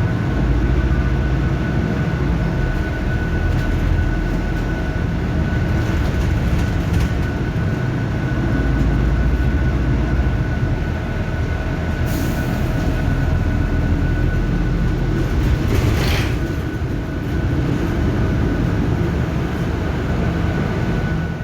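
Steady, loud low rumble of a moving vehicle, with a faint steady whine over it and two short hissing rushes, about twelve and sixteen seconds in.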